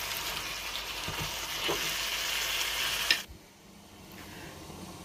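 Beef curry sizzling and frying in a nonstick pan as it is browned with its spices on high heat (kosha), stirred with a wooden spatula that scrapes a few times. About three seconds in, the sizzling drops away abruptly to a faint hiss.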